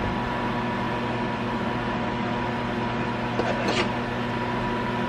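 Steady hum of a running kitchen appliance over an even hiss, with a short light clatter about three and a half seconds in.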